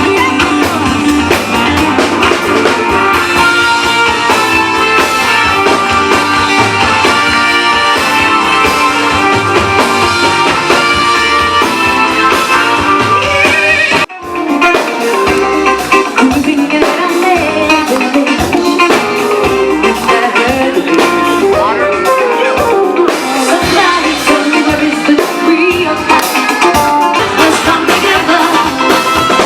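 Music: a song with singing, guitar and drums, with a short break about 14 seconds in.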